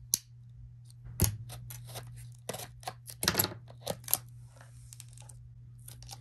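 Screen-protector kit and phone-case packaging being handled and opened by hand: a string of sharp clicks, taps and rustles of plastic and cardboard, over a steady low hum.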